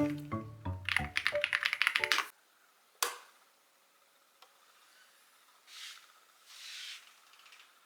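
Rapid computer keyboard typing clicks over background music, both stopping suddenly about two seconds in. A single sharp click follows about a second later, then two soft rustles near the end.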